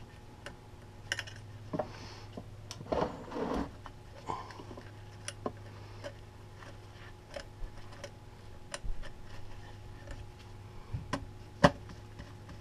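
Small clicks, taps and scrapes of a screwdriver and wire leads being worked into the screw terminal block of a variable frequency drive, with gloved hands handling the wires. A steady low hum runs underneath, and the sharpest click comes near the end.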